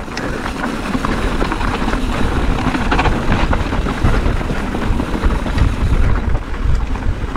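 A mountain bike riding over a rocky dirt trail, its tyres crunching on loose stones and gravel and the bike rattling with frequent short clatters, under a heavy rumble of wind buffeting the microphone.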